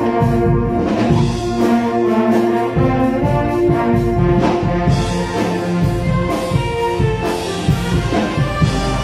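Concert band playing, with brass chords held over regular drum strikes; the sound grows fuller about five seconds in.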